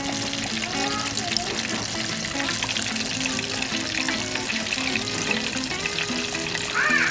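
Hot oil bubbling and crackling steadily in a square electric frying pan as food fries, with background music playing a stepped melody.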